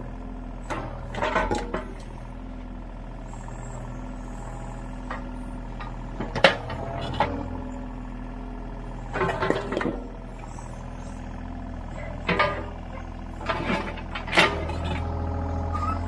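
Mini excavator's diesel engine running steadily with a whining hydraulic tone that shifts in pitch as the arm works. The steel bucket and thumb knock and scrape against broken concrete slab chunks several times, in short clusters. The engine note grows louder near the end.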